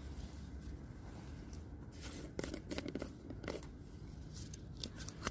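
Plastic bait tub of maggots in sawdust being opened and handled: a stretch of crackling and crunching about two and a half seconds in, then a few light clicks near the end, over a steady low rumble.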